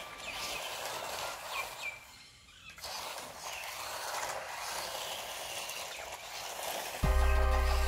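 Outdoor background hiss with a few short bird chirps. Loud music with a heavy bass beat cuts in abruptly near the end.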